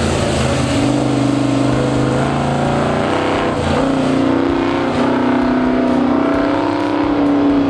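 Classic Chevrolet pickup's engine revving hard through an autocross course, its pitch rising and falling as it accelerates and eases off between cones.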